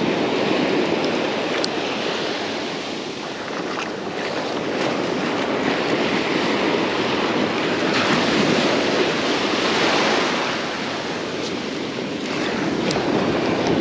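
Ocean surf breaking and washing up the beach, a steady rush that swells and eases, with wind buffeting the microphone.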